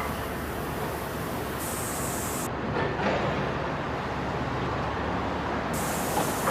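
Steady mechanical running noise with a constant rushing hiss and a few faint knocks; the highest part of the hiss drops out for about three seconds in the middle.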